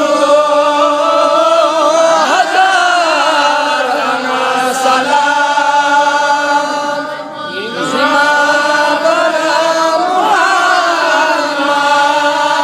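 A man chanting a devotional recitation in a loud, melodic voice, holding long notes that bend in pitch, with a short break for breath about seven seconds in.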